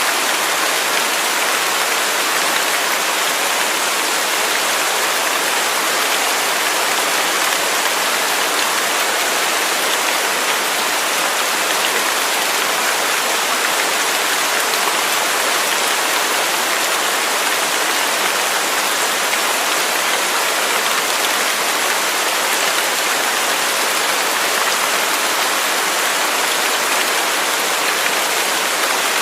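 Waterfall: a steady, unbroken rush of falling water, bright and hissy with little low rumble.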